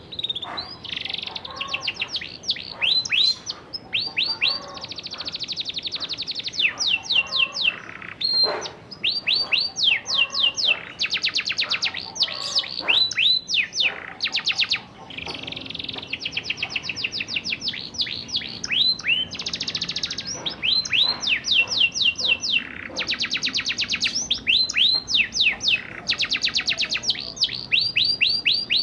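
Young domestic canary singing its rolling song: fast trills of repeated downward-sweeping notes, switching from one trill to the next every second or two, with a short break about eight seconds in. It is a young canary still learning its rolls.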